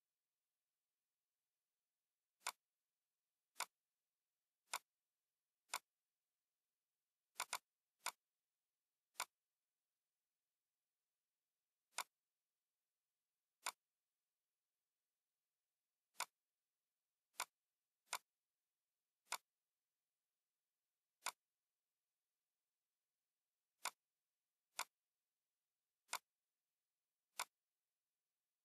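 Computer mouse clicks, single sharp clicks at irregular intervals of about one to three seconds, once two in quick succession, as dimension points are picked in a CAD drawing.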